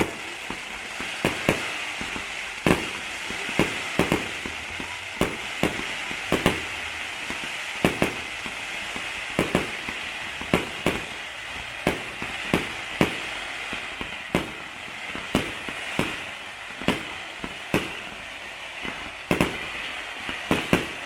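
Fireworks going off: a continuous run of sharp bangs, one or two a second, over a steady crackling hiss.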